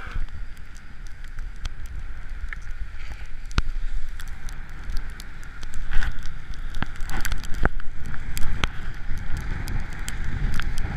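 Wind buffeting a moving camera's microphone while riding down a snow slope, with a steady hiss of sliding over the snow and scattered clicks and knocks.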